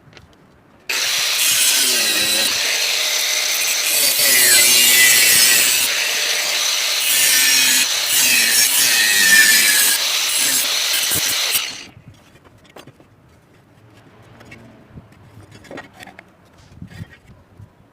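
Angle grinder cutting into steel: a loud, continuous grinding noise about eleven seconds long, its pitch sagging and recovering as the disc bites. It starts about a second in and stops before the last six seconds, which hold only small handling clicks.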